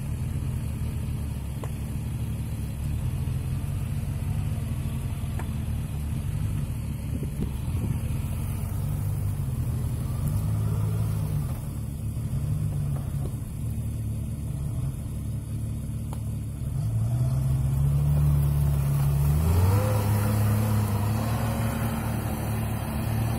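Off-road vehicle's engine revving, its pitch rising and falling again and again, then climbing higher and louder in the last several seconds before dropping away.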